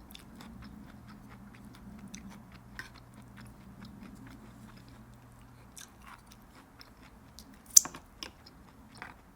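Close-up chewing and biting of food, with soft crunches and many small irregular clicks. One much louder sharp click comes about eight seconds in.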